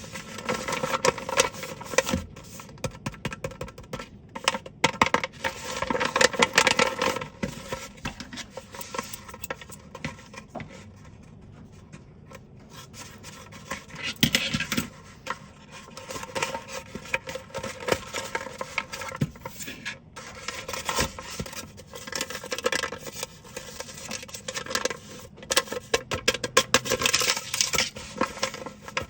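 Hands crinkling, scratching and tearing at a homemade blind bag's packaging, a dense run of quick crackles and clicks that eases off for a few seconds in the middle.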